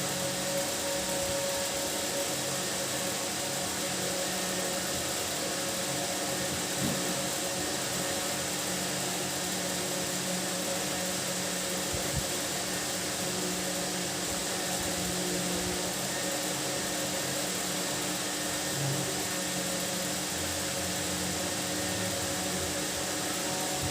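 Steady mechanical hum with an even hiss, holding one pitch, with a couple of faint clicks partway through.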